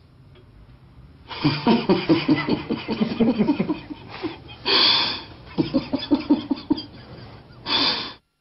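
People laughing in quick bursts, with two louder, longer bursts about five seconds in and near the end, then cutting off suddenly.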